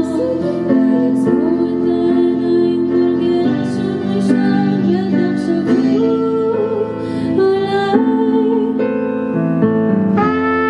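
Slow song played live on keyboard and electric guitar, an instrumental passage; a trumpet comes in during the second half with held notes.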